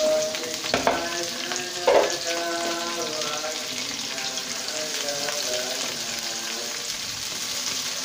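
Hot oil sizzling in a wok as shredded cabbage is tipped in onto fried shallots, garlic and chillies. Two sharp knocks stand out, about one and two seconds in, the second the loudest.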